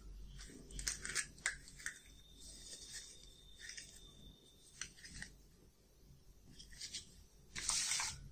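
Small plastic toy pieces clicking and knocking together as they are picked up and handled, with a louder rattling scrape near the end as the pieces are pushed together.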